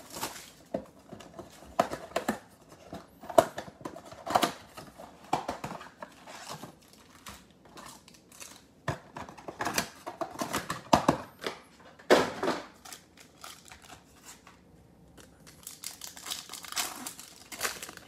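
Panini Select football mega box being pulled open and foil card-pack wrappers crinkling and tearing, in irregular rustles and crackles with a couple of quieter pauses.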